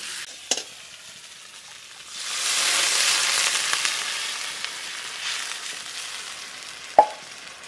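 Water poured from an aluminium pot into a hot aluminium kadai of taro and rohu fish-head pieces frying in spiced oil, setting off a loud hissing sizzle that starts about two seconds in and slowly dies down. A spatula scrapes the pan once about half a second in, and a sharp knock comes near the end.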